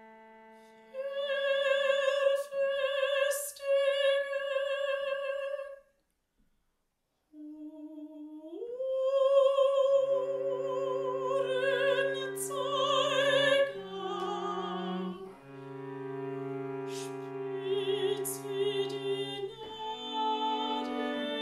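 A woman singing long, high notes with a wide vibrato, operatic in style, over sustained low cello notes. The music stops for about a second and a half near the middle, then the voice slides up into the next phrase as the cello comes back in beneath it.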